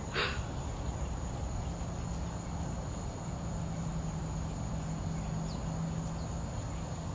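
Outdoor insect chorus: a steady, unbroken high-pitched trill over a low background rumble, with a brief noise just at the start.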